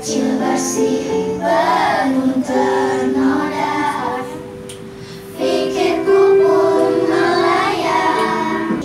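A group of children singing a song together in unison, in phrases of held notes, softer for a moment about four to five seconds in.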